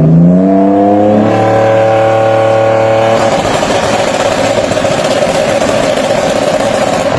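Japanese performance car engine revving up over about a second and then held steady at high revs. About three seconds in the sound turns rough and noisy.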